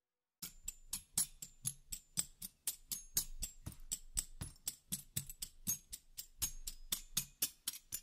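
Background music: after a brief silence, a percussive track starts with quick, even ticking beats, about five a second.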